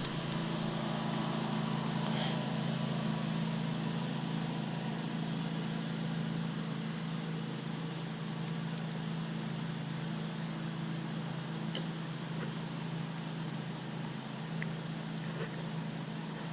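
Steady outdoor background noise: an even rushing hiss with a low, unchanging hum beneath it and a few faint ticks.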